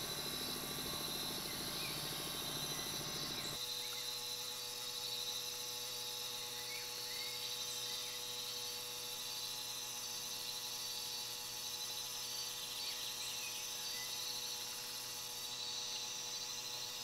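Steady chorus of insects shrilling, with a low steady hum underneath that drops away about three and a half seconds in.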